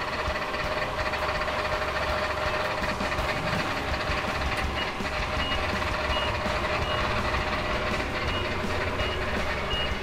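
Nissan forklift running, its reversing alarm starting about halfway through and giving short high beeps at a steady pace over a constant machine hum.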